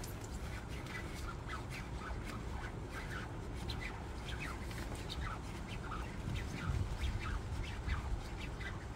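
A hand squeezing and rubbing the wet, shiny nylon shell of a puffer jacket, giving short irregular crinkles and squeaks several times a second over a steady low rumble.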